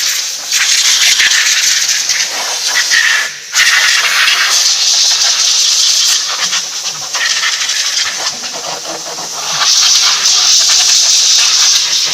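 Compressed-air blow gun blowing aluminium chips off a freshly CNC-milled part: a loud hiss that stops briefly about three and a half seconds in, then starts again, easing off for a moment before it comes back strongly near the end.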